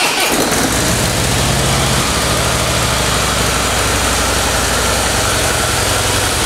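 2015 Harley-Davidson Softail Breakout's 103 cubic-inch V-twin, just started and idling steadily through its factory exhaust. The nearly new, 69-mile engine runs like a new one.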